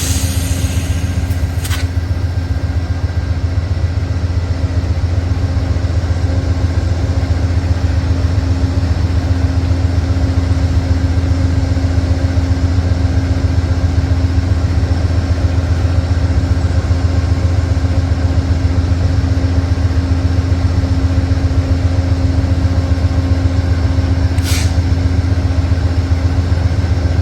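Amtrak P42 Genesis diesel locomotives idling with a steady low drone while the train stands at the platform. Two brief sharp high sounds break in, about two seconds in and near the end.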